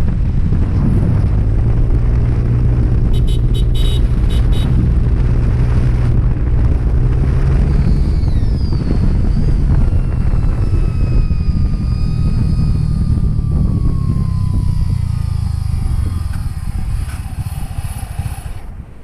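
Honda Click 125i scooter's single-cylinder engine and belt drive running at road speed, with wind noise. From about halfway a whine falls slowly in pitch as the scooter slows, and the sound fades near the end.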